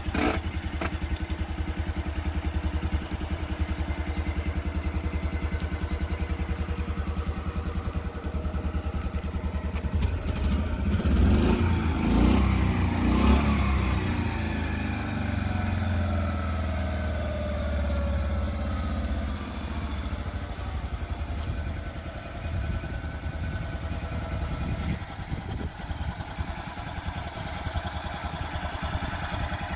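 1957 BMW Isetta 300's single-cylinder four-stroke engine, borrowed from the BMW R25/3 motorcycle, running with an even beat, then driving toward and past. It is loudest about 11 to 13 seconds in, with a few clicks, and its pitch falls away as it goes by. A single knock comes right at the start.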